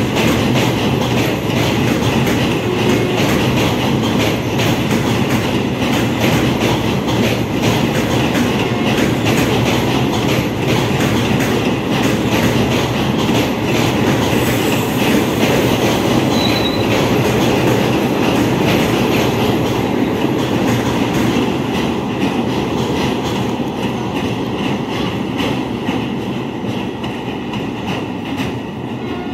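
A long passenger train's coaches rolling past over a steel girder bridge, a steady loud rumble of wheels with clickety-clack over the rail joints. The sound fades over the last few seconds as the last coach goes by.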